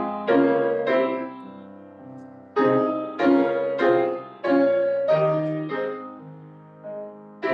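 Solo piano playing slow chords, each struck sharply and left to ring out and fade, with a couple of longer held chords.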